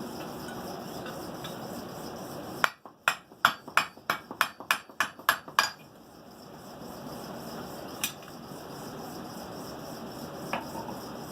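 Blacksmith's hand hammer striking hot steel on the anvil, driving a drift to open the eye of a forged hammer head: a quick run of about ten blows in three seconds, then one more blow a couple of seconds later.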